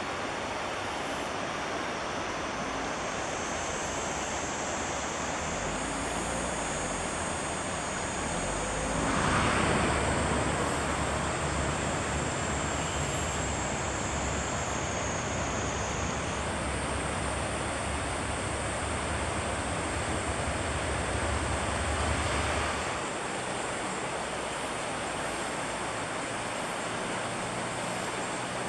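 Steady rush of river water running over rocks in shallow rapids. A low rumble swells in about nine seconds in, stays until about twenty-three seconds, then drops away.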